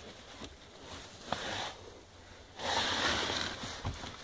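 Handling noise of hands working under a car dashboard: a sharp click about a second in, short rustles, and a longer hissing rustle around the middle, with a few small clicks near the end.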